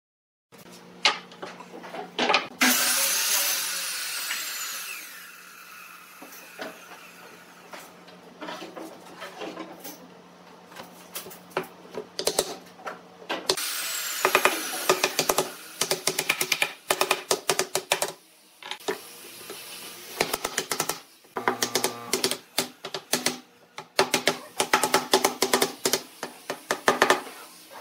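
Handling noises of glue being squeezed from a plastic bottle onto pine strips: scattered clicks and a louder stretch of rustling hiss. Then, about halfway through, a wooden mallet taps pine cross strips down into notched joints with many quick, sharp knocks of wood on wood in irregular runs.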